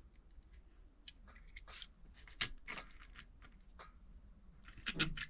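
Light, scattered clicks and rustles of small diecast model cars being handled and set down, with a brief louder rustle near the end.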